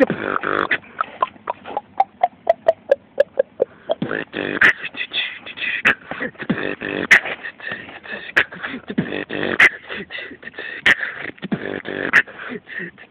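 A person beatboxing a steady beat of sharp clicks and snare-like hits, mixed with voiced sounds. In the first few seconds there is a quick run of short pitched notes that step down in pitch.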